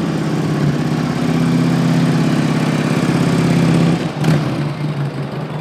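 A motor vehicle's engine running at an even pitch, growing louder for about four seconds, then dropping suddenly, with a short click just after.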